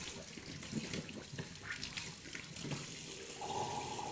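Tap water running into a bathroom sink, splashing as a man washes at it. About three and a half seconds in, a steady held note from his throat joins it as he tips his head back.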